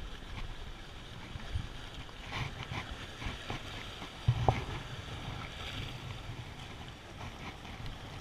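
Wind buffeting the microphone over waves washing against the jetty rocks, with a short sharp click about four and a half seconds in.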